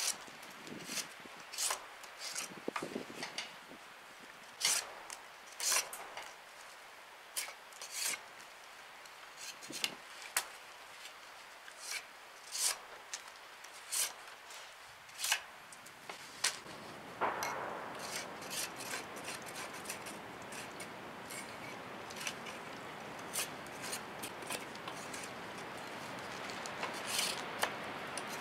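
BHK Bushcrafter knife scraping and shaving bark off a wooden stick in short, irregular strokes. A steady hiss comes up behind the strokes about two-thirds of the way through.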